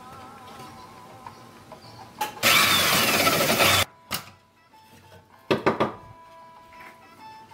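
Electric drill in a drill-press stand, run through a speed controller, boring a large hole through a wooden board: a loud cutting rush lasting about a second and a half that cuts off suddenly. A few seconds later come a few short knocks and scrapes as the board is lifted off the table. Quiet background music plays underneath.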